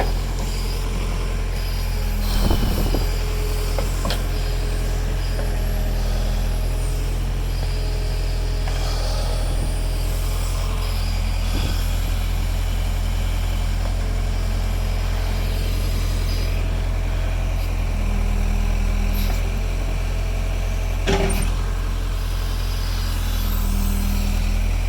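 Backhoe's diesel engine running steadily as it digs, with a couple of sharp knocks from the machine's work.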